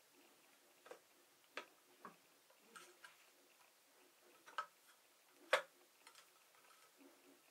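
Hand-operated Leverpresso lever espresso maker being worked by hand during an extraction: a few faint, irregular clicks and taps from its arms and body, with one sharper knock about five and a half seconds in.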